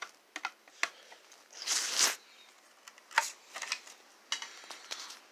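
Scattered light clicks and a brief scraping rustle about two seconds in: handling noise as a plastic wall-mount speaker strobe is being opened with a screwdriver.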